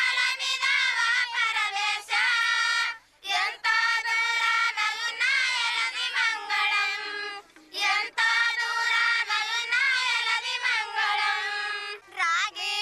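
High-pitched women's voices singing a folk song in long phrases of about four seconds each, with short breath pauses between them.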